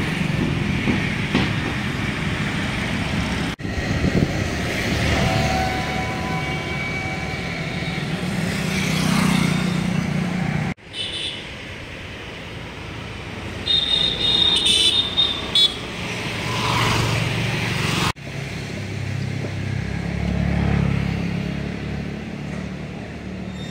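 Roadside traffic: vehicles running past with a low rumble and a few short horn toots, including a quick run of high beeps midway.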